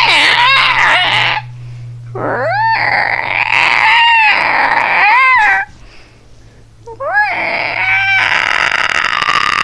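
A person imitating dinosaur roars with their voice: three high, raspy screeches, each sliding up sharply and then wavering down. The first is short, the second begins about two seconds in and lasts over three seconds, and the third begins about seven seconds in.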